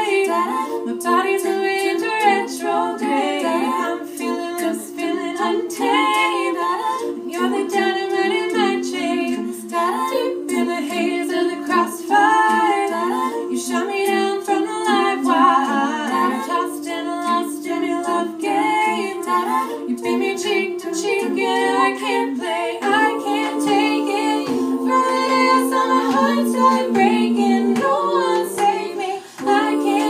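All-female a cappella group singing: a solo female voice carries the melody over sustained backing chords sung by the rest of the ensemble, with a brief break just before the end.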